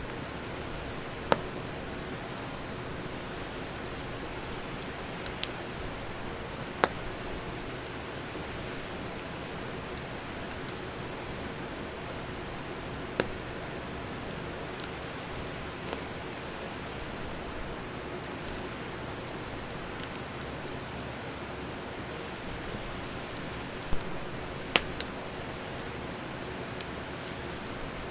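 Wood fire burning with a steady hiss and scattered sharp crackles and pops, a few of them louder than the rest.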